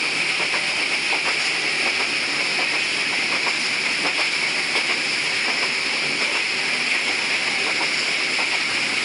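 Steady hissing rush of a train in motion, heard from on board, with a few faint clicks.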